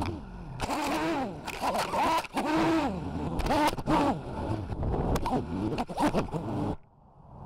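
Brushless motors of a 5-inch FPV freestyle quadcopter whining, heard from the onboard camera, their pitch rising and falling quickly with the throttle as it weaves through tree branches, with a few sharp knocks from clipping them. Near the end the motor sound cuts off suddenly as the quad crashes into the tree.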